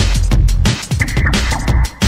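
Electronic drum-and-bass music: fast, evenly repeating drum hits over heavy bass, dropping out briefly near the end.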